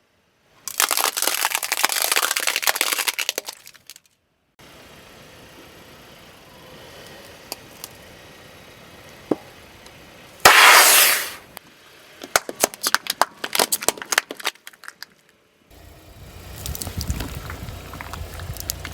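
Objects crunching and cracking as they are crushed under a car's tyres, heard in several short clips: a dense crackling, one loud burst about ten seconds in, then a rattle of sharp cracks. A car's low rumble joins near the end.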